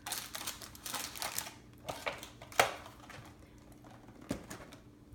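Rustling and clicking of a cardboard box of protein bars and a bar wrapper being handled, with a sharp tap about two and a half seconds in and a softer knock a little after four seconds.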